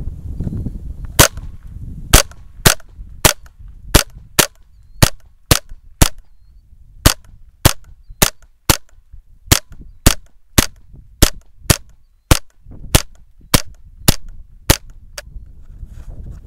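.22 rifle firing rapidly, about two dozen sharp cracks at roughly two shots a second, with a few brief pauses.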